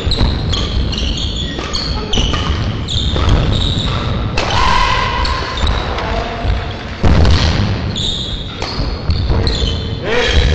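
Badminton rally: repeated racket strikes on the shuttlecock and sports shoes squeaking in short chirps on the court floor, echoing in a large sports hall.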